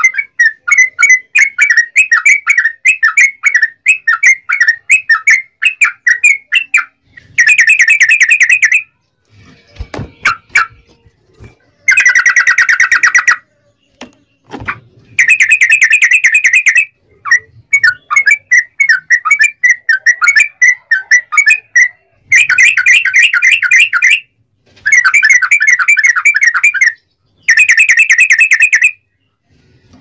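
Yellow-vented bulbul (trucukan) singing its long rolling song: fast bubbling runs of notes, a long run at first and then phrases of one to two seconds with short pauses between them. A few sharp knocks fall in the gaps about ten and fourteen seconds in.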